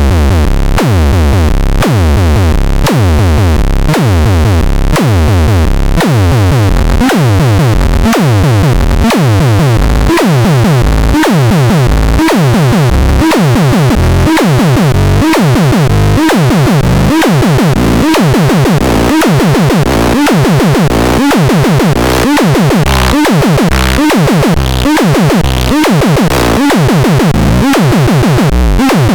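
Loud electronic music: synthesizer with heavy bass and a steady drum-machine beat, about two beats a second.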